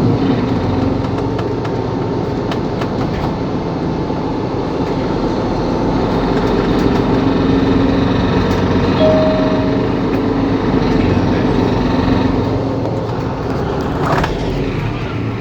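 Mercedes-Benz Capacity L city bus running, its engine humming steadily, with one short beep about nine seconds in.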